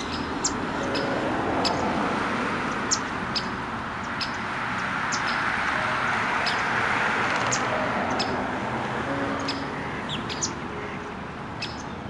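Small birds chirping, with short high calls scattered through the whole stretch, over a steady rushing background that swells in the middle.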